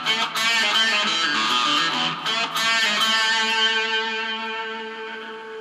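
Electric guitar, a Gibson Les Paul with its pickup selector in the middle position (both humbuckers on), played through a Marshall MG30 combo amp: a short riff of picked notes, then the last notes left ringing and slowly fading from about three seconds in.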